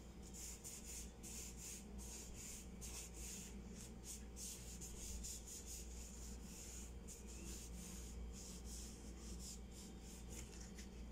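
Paper towel wiping the underside of a kitchen wall cabinet: faint, repeated rubbing strokes as the surface is cleaned and dried.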